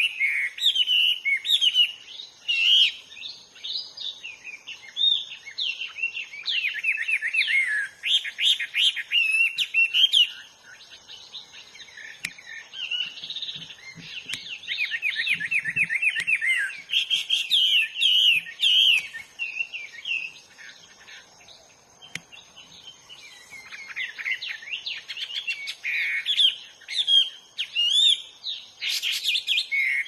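Hwamei singing a loud, varied song of rich whistled phrases and rapid trills, broken by short pauses about a third and two-thirds of the way through.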